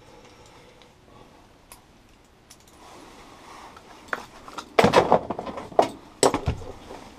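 Metal clip and collar hardware clinking and jangling as a training lead is clipped onto a dog's collar, with a few loud clattering knocks about five seconds in and again about six seconds in.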